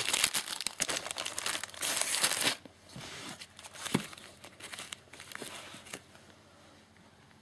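Clear plastic wrapping of a packet of sparklers crinkling as it is handled, loudest in the first two and a half seconds. Softer crinkles and a single light tap follow about four seconds in.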